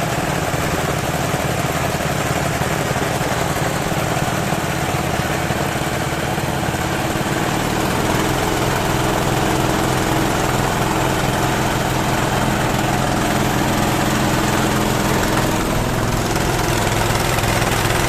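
Small water-pump engine running steadily, driving a homemade well-drilling rig through a Suzuki Carry gearbox. About eight seconds in, its sound grows heavier and a little louder.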